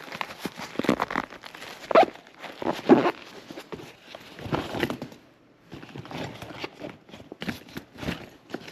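Irregular rustling, crinkling and light knocks of things being handled, with a brief lull about five seconds in.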